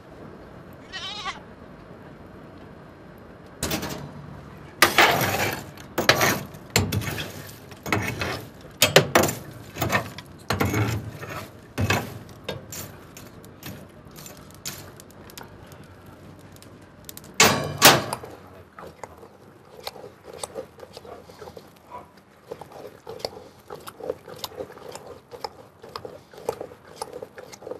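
Coal fire crackling and popping, with a run of loud, irregular cracks from about four seconds in, easing after about eighteen seconds to softer, quicker crackles.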